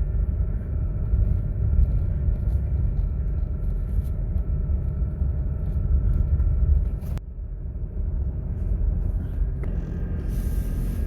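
Engine running steadily with a low rumble and a faint steady hum above it. A click about seven seconds in is followed by a brief dip before it carries on.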